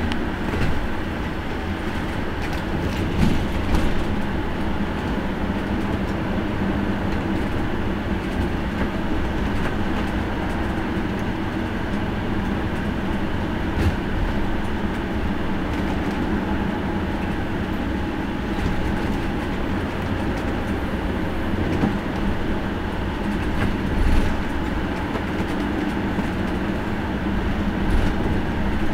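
Coach bus heard from inside the cab while driving: steady engine and road rumble with a low hum, and a few brief rattles and knocks from the bodywork.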